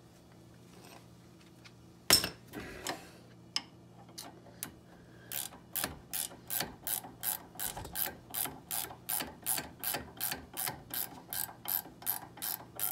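Hand ratchet clicking as it backs out a brake caliper bolt: a few loose clicks about two seconds in, then from about five seconds in a steady run of ratchet clicks, about three a second.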